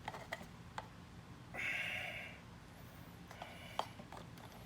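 Handling of a plastic container and pump parts: scattered light clicks and taps, with a short scraping rustle about a second and a half in.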